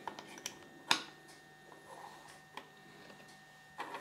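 Small hard-plastic Kinder Surprise toy figures being handled and set down on a table: a scatter of light clicks and taps, the sharpest about a second in.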